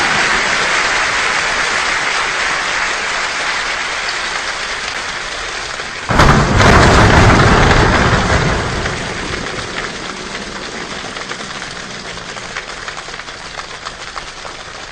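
A choir's body-percussion rainstorm: a steady, rain-like hiss of many hands rubbing, clapping and slapping legs, slowly fading. About six seconds in, a sudden loud rumble of the performers jumping on the stage stands for thunder. The sound then dies away into thinning, scattered claps.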